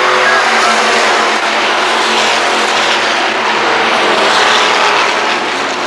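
A pack of stock cars racing around an oval track, their engines running together in a loud, steady blend.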